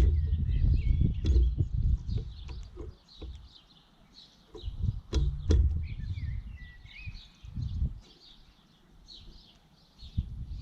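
Small birds chirping in a busy chorus of short, high calls, with a few lower whistled, gliding notes. Loud low rumbling thuds come and go over it, heaviest at the start and about five seconds in.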